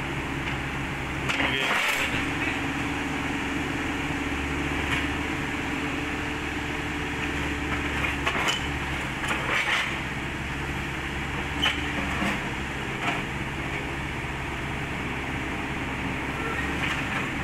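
Kobelco SK50 mini excavator's diesel engine running steadily under load as the machine crawls up onto a trailer ramp, with scattered sharp knocks and clanks from the tracks and steelwork.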